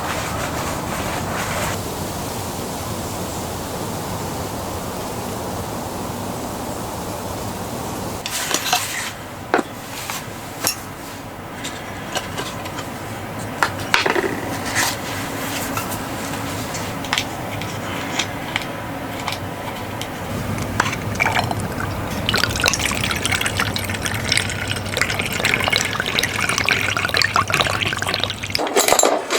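Liquid sounds, like water being poured or bubbling, with scattered sharp clicks and knocks from about a third of the way in and a brighter hissing over the last few seconds.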